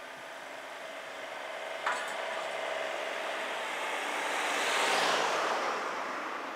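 A vehicle passing out of sight, its noise swelling to a peak about five seconds in and then fading, with a single sharp click near two seconds in.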